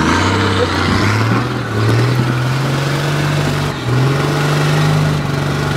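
Toyota Land Cruiser HDJ80's 4.2-litre turbo-diesel straight-six working under load as the tilted truck crawls through deep ruts, the revs climbing briefly twice.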